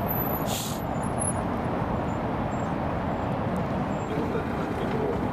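Steady low rumble of outdoor city ambience, with distant traffic, and a brief hiss about half a second in.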